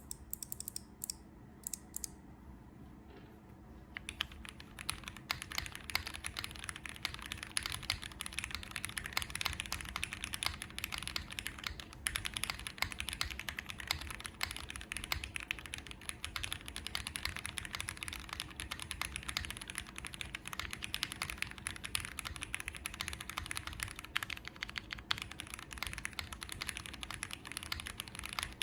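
Custom KBDfans Odin V2 mechanical keyboard with lubed Cherry MX Black Hyperglide linear switches on a polycarbonate plate with plate foam, under GMK keycaps, being typed on. A few single keystrokes at first, then about four seconds in, fast continuous typing.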